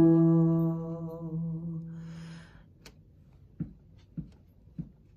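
A woman sings a low 'do', the tonic of E minor, and holds it with a slight vibrato as it fades out over the first two and a half seconds. Then comes a soft, even tap about every 0.6 seconds, keeping the beat before she sings.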